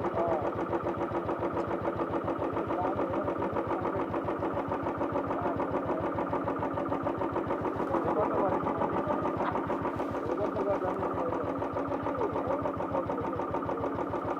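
Motorcycle engine idling steadily with an even, rapid firing pulse.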